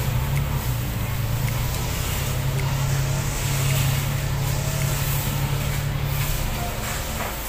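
A motor engine's steady low hum, which drops away about six seconds in.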